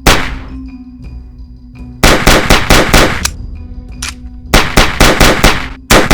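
Film gunfire sound effects: a single shot, then a rapid burst of automatic fire about two seconds in, another single shot, and a second rapid burst just after. Background music plays underneath.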